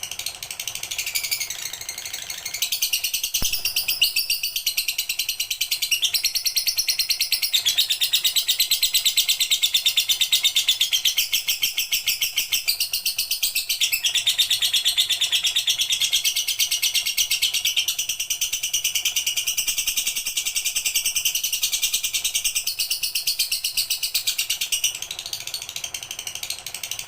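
Lovebird singing one long, rapid, unbroken high-pitched trill, building about two seconds in and easing off near the end.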